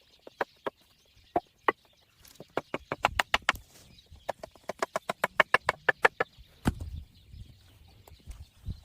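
Small branches and twigs being handled and tied together into a mat, giving a string of sharp irregular clicks and snaps, densest in the middle, with a couple of dull thumps near the end.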